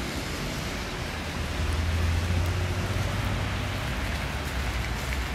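Wet city street ambience: a steady hiss of traffic and tyres on wet asphalt, with a vehicle's low rumble swelling as it passes about two seconds in.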